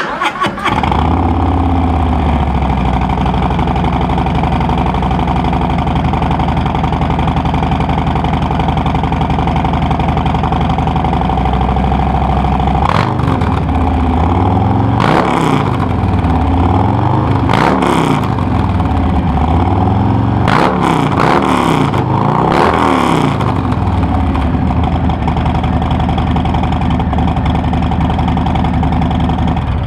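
2020 Harley-Davidson Street Bob's Milwaukee-Eight 107 V-twin breathing through a freshly installed Bassani Road Rage 2-into-1 exhaust. It starts up at the very beginning and idles steadily, then is given a series of throttle blips between about 13 and 23 seconds, and settles back to idle.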